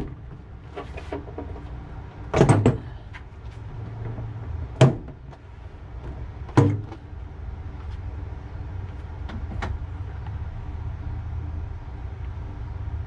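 Plastic trim panel on the inside of a car's rear hatch being pulled down, its retaining clips letting go in sharp snaps: a quick double snap, two more single snaps a couple of seconds apart, then fainter clicks, over a low steady hum.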